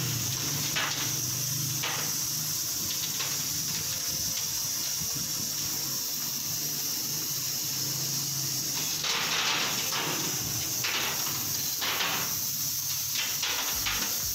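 Laser cutting machine running with a steady high hiss and a low hum, under short clattering rattles of cut plastic sheets and tag pieces being lifted off the slatted bed; the rattles are loudest about nine to ten seconds in.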